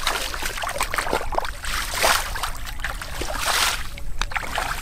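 Legs wading through shallow muddy water, sloshing and splashing in several surges, the loudest about two seconds in and again near three and a half seconds.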